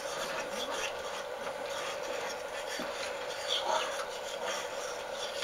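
Soft, irregular rubbing and scraping from a hand working inside a large aluminium stockpot, over a steady low hum.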